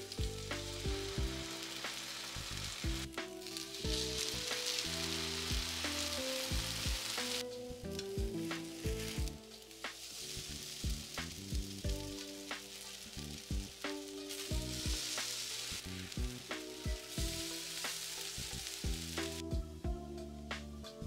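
Egg-soaked bread slices (French toast) sizzling in butter on a griddle pan, a steady frying hiss that dips briefly a few times and fades near the end. Background music with plucked notes plays underneath.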